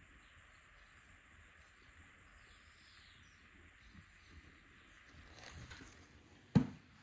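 Faint steady rural background hiss, with soft fabric rustling as a large floor cushion is lifted and handled. About six and a half seconds in comes a single sharp thump, the loudest sound.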